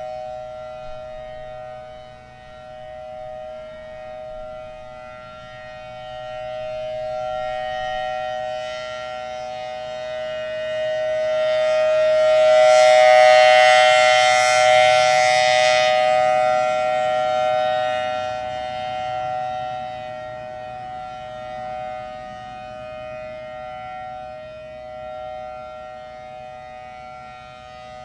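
Federal Signal Thunderbolt outdoor warning siren holding a steady pitch as its rotating head turns, swelling to its loudest about halfway through and then fading back. It sounds worn and weak, as if not enough air from its C-series blower reaches the chopper, which the uploader suspects comes from a head not properly bolted down to the flange.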